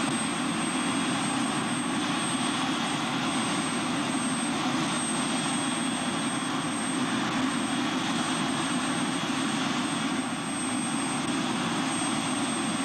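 Helicopter running on the ground with its rotor turning: a steady rumble with a thin, high, steady whine over it.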